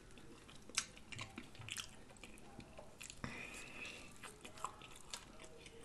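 Quiet chewing and mouth sounds of a man eating a beef burger slider, with scattered small wet clicks and a sharper click about a second in.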